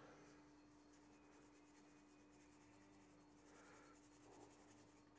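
Near silence: quiet room tone with a faint steady hum and a faint scratchy hiss.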